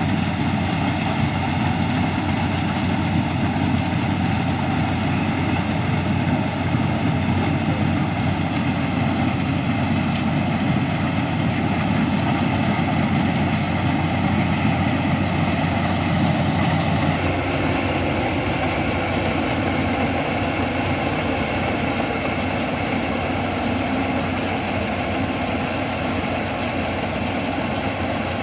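Yanmar rice combine harvester running steadily as it harvests standing rice, a continuous engine hum with a sudden shift in tone about two-thirds of the way through.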